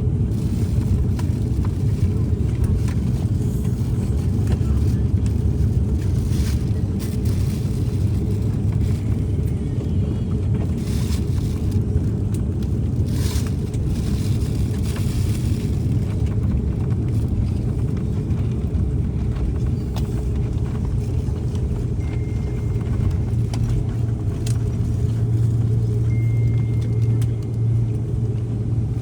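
Jet airliner cabin noise: a steady low rumble of engines and airflow. A few faint clicks come through in the middle, and a faint thin high tone comes and goes near the end.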